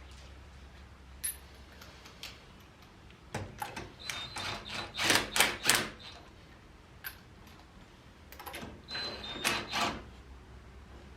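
Hand-tool work on the car: bursts of sharp metallic clicks and knocks, a dense run about four to six seconds in and another around nine to ten seconds.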